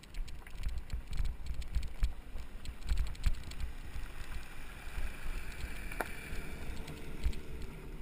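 Mountain bike rattling and clicking over a rough trail, many small knocks and clatters from the bike, one sharper knock about six seconds in, with low rumble of wind and jolts on the microphone.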